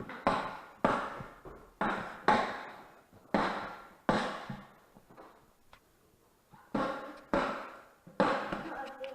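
About nine hard thuds, each cut off into a short ringing tail, falling roughly in pairs with a pause of over a second in the middle.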